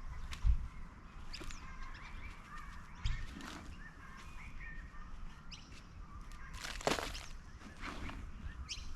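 Birds chirping in the background of an outdoor garden, with scattered short rustles and two soft low thumps about half a second and three seconds in, as soil is dug through by hand for potatoes.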